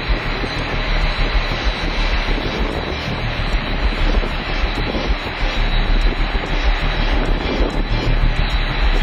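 Combine harvester running steadily while cutting wheat: an even engine-and-threshing drone with a strong low rumble underneath.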